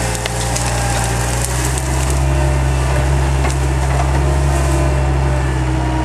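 Skid steer engine running steadily while its grapple root rake crushes brush, with crackling and snapping of branches, mostly in the first two seconds.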